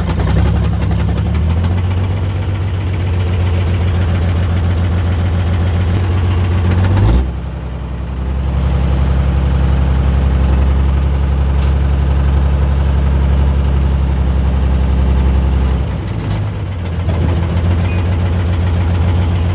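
Cable log skidder's diesel engine running steadily under way. Its note drops briefly about seven seconds in and again near the end, then picks back up heavier each time.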